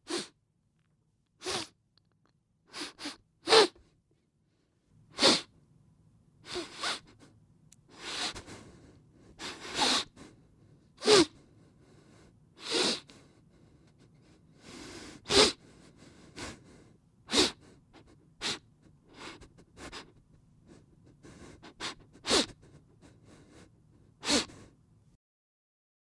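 A person crying: short, sharp sobbing breaths and sniffles at irregular intervals, roughly one a second, over a faint low hum.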